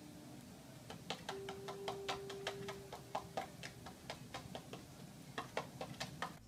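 A run of quick, irregular clicks, about three a second, as a cat paws at the top edge of a black electronic unit. A steady hum sounds for a couple of seconds in the middle.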